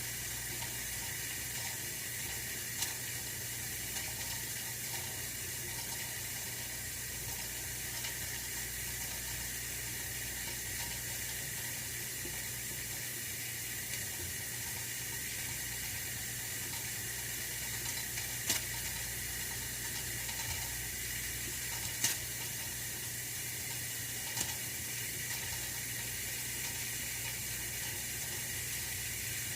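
Oil-filled radiator heater running: a steady hiss with a low hum underneath, and a few brief clicks scattered through.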